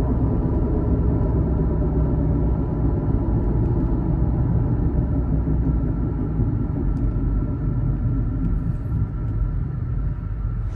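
Car cabin at about 70 mph: steady tyre and road rumble with a droning hum from a failing wheel bearing. The bearing is worn out and seized with road salt.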